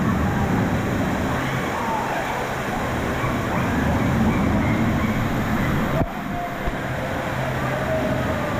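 Steady rushing water with a low rumble, heard while riding a water attraction, with faint distant voices over it. A sharp knock about six seconds in, after which the rush is a little quieter.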